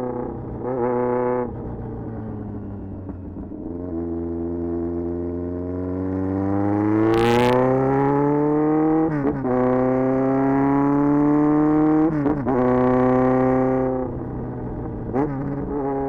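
1994 Yamaha XJR1200's air-cooled inline-four with a very loud exhaust, pulling hard on the expressway: the engine note climbs steadily, breaks briefly at gear changes around 9 and 12 seconds, and settles lower when the throttle is eased near the end.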